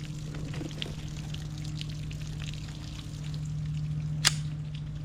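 Water pouring and dribbling out of bullet-holed plastic water bottles, with scattered small ticks and one sharp click about four seconds in.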